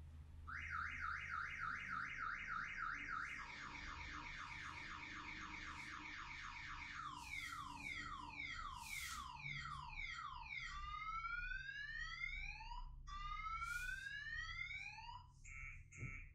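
Electronic car-alarm-style siren cycling through its tones: rapid rising chirps, then faster chirps, falling sweeps and long rising whoops, and evenly pulsed beeps near the end. It sounds as the alarm that wakes a sleeping child.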